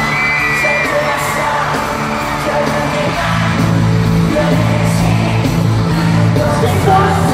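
Live pop music played loud through an arena sound system, with a singer's voice and the audience yelling and whooping along. A heavier bass line comes in about three and a half seconds in.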